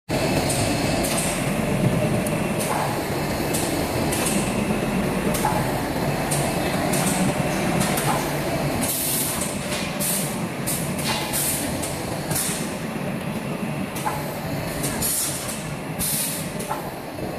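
Sausage thermoforming vacuum packaging machine running: a steady mechanical clatter and hum, broken by frequent short hisses of air, several a second, from its pneumatics.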